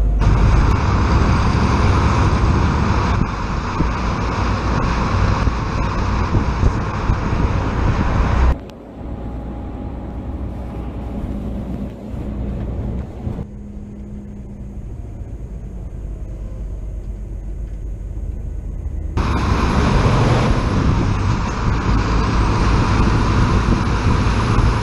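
Scania S500 truck driving at road speed: steady engine, tyre and wind noise. The sound drops suddenly to a quieter, lower drone about a third of the way through and turns loud again for the last stretch.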